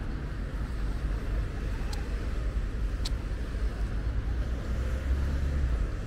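Street ambience of road traffic: a steady low rumble of cars that swells a little about five seconds in, with two faint high clicks.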